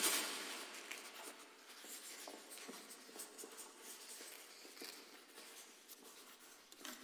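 Pen writing on newspaper crossword paper: faint, scattered scratching strokes. A soft rush of noise at the start fades over the first second or two.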